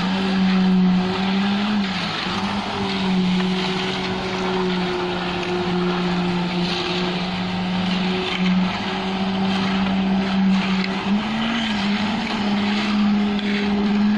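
Concrete pump truck's engine running with a steady drone, its pitch dipping briefly a couple of times near the end, under the scraping of rakes and hoes through wet concrete.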